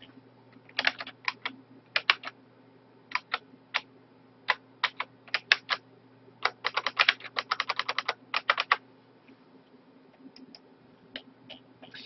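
Typing on a computer keyboard: scattered groups of keystrokes, then a fast run of keys about halfway through, and a few faint clicks near the end. A low steady hum runs underneath.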